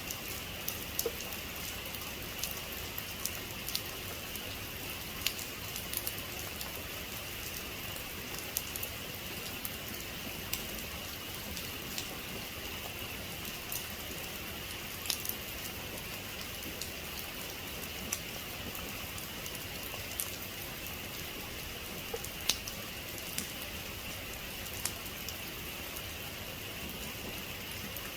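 Heavy rain falling steadily, an even hiss with many sharp drop impacts scattered through it.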